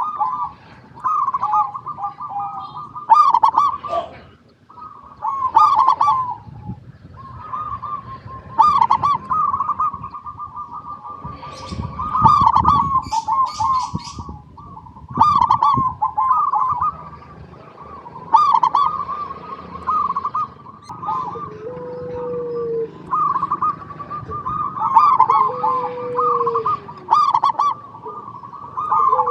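Zebra dove (perkutut) cooing its rhythmic, staccato song in quick repeated phrases. High chirps of other small birds come in between, and a lower, falling call sounds three times in the last third.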